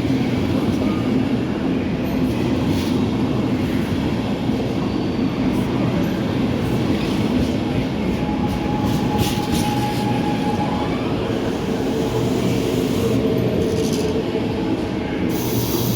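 A train running on a station track: a steady loud rumble of wheels and running gear, with a faint high whine about halfway through.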